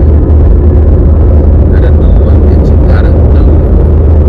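Steady low rumble of road and engine noise inside a moving Mitsubishi car's cabin at cruising speed.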